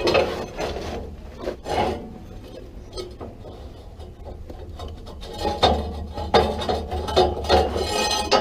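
Steel boiler tube being dragged out through the enlarged king hole in a steam locomotive's tube sheet, metal scraping and rubbing on metal. There are a few scrapes at first, a quieter stretch, then louder, repeated scraping from about five seconds in.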